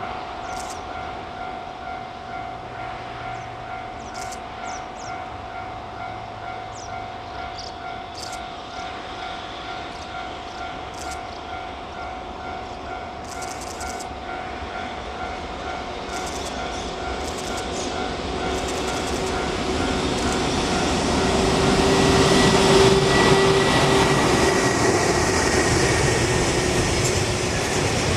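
Birds chirping in short high calls over a steady hum, then a train on the line growing louder from about two-thirds in until it passes close and loud near the end.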